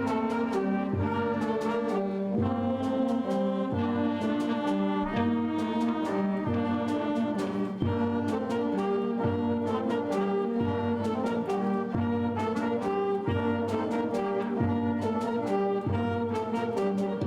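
A band playing a piece with brass leading in sustained chords, a low note coming back on a steady beat about every second and a bit, and percussion strokes throughout.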